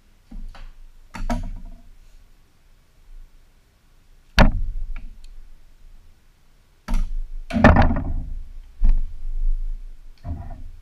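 Handling knocks on a countertop: a white plastic armour piece and a glue bottle being picked up, moved and set down. There is one sharp knock about four seconds in, and a longer cluster of knocks and rustling plastic around seven to eight seconds in.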